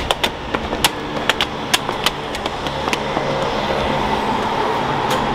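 Footsteps on stairs, a run of sharp irregular clicks over the first couple of seconds, over a steady hum of street traffic.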